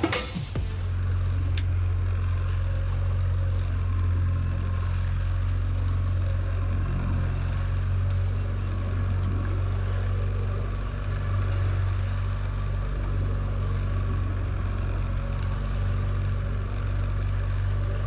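A boat's motor running steadily, a low even drone.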